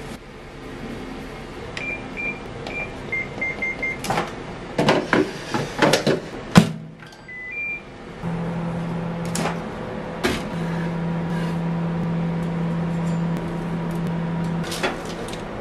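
Hitachi microwave oven in oven mode: a run of short control-panel beeps, knocks and clatter ending in one loud clunk about six and a half seconds in, two more beeps, then the oven running with a steady low hum.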